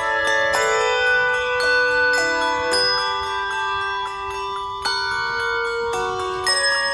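Handbell choir ringing handbells in a slow piece: chords of bright bell tones that ring on and overlap, a new chord struck every half second to two seconds.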